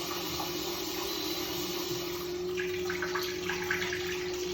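Toilet cistern refilling after a flush: water rushing into the tank with a steady hum from the fill valve that rises slightly in pitch as the tank fills.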